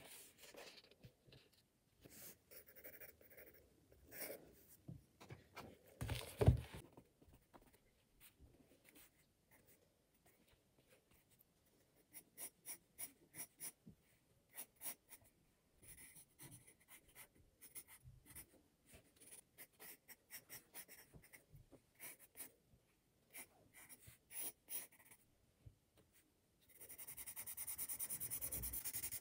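Graphite pencil scratching on sketchbook paper in short, irregular strokes, with a single thump about six seconds in. Near the end the strokes turn into a quick continuous back-and-forth of hatching.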